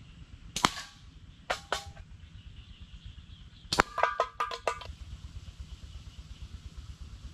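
Slingshot shots: a series of sharp cracks from the bands snapping on release and the ammunition striking targets, some hits leaving a short ring. One crack, then a pair, then a quick run of several near the middle.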